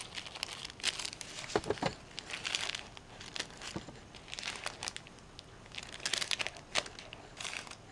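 A sheet of double-sided fusible interfacing rustles and crinkles as it is handled, with a few sharper crackles.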